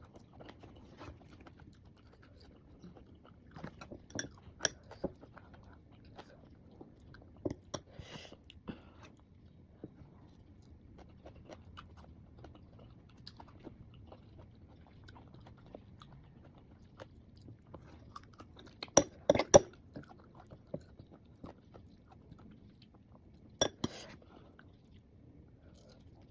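Close-up chewing and crunching of mango slices eaten with shrimp paste, a run of small wet crunches, with a cluster of louder bites about two-thirds of the way through and another near the end.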